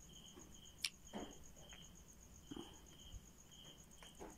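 Crickets chirping quietly in the background: one a fast, even high-pitched pulse, another in short repeated trills. A single sharp click comes just under a second in.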